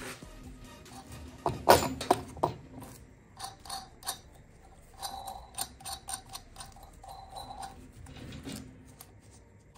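Metal clinks and knocks of a steel hub flange and its bolts being handled and fitted onto a garden cart wheel. The loudest cluster of knocks comes about two seconds in, followed by lighter scattered clicks.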